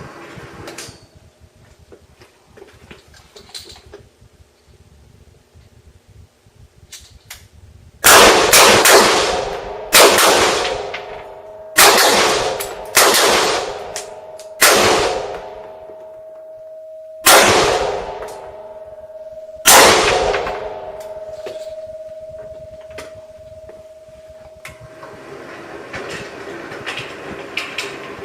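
AR-15 rifle being fired at a target in a slow, uneven string of about nine shots beginning about eight seconds in, each shot echoing off the walls of an indoor range. The rifle is being zeroed at seven yards.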